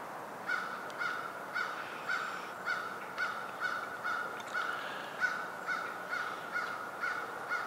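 Crow cawing over and over in an even series, about two caws a second, starting about half a second in.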